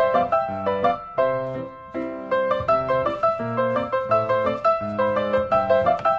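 Background piano music, notes and chords struck in a quick steady run.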